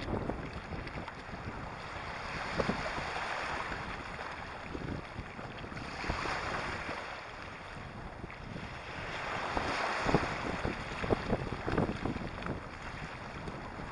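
Small waves washing in over a shingle and sand shoreline, the hiss swelling about every four seconds, with wind rumbling on the microphone. There are short sharp splashes near the end.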